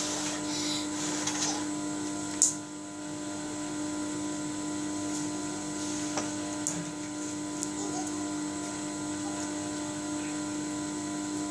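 Steady electrical hum, with a sharp pop about two and a half seconds in and a few soft clicks later, as red slime is blown into a bubble, then kneaded and stretched.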